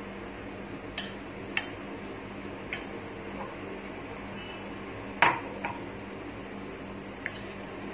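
Metal spoon clinking against a ceramic bowl while stirring oats, milk and curd: about six separate clinks, the loudest a little past five seconds in, over a steady low background hum.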